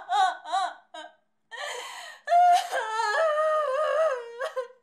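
A woman wailing and sobbing in grief: short, breaking cries at first, a brief pause, then a long, drawn-out wail with a wavering pitch.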